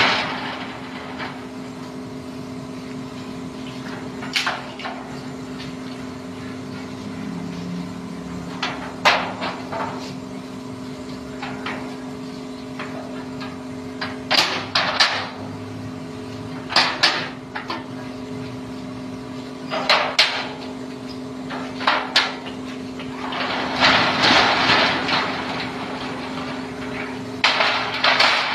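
Steel folding garage gate being opened and closed by hand: repeated sharp metal clanks and knocks as the hinged panels fold and meet, with a couple of longer rattling runs near the end.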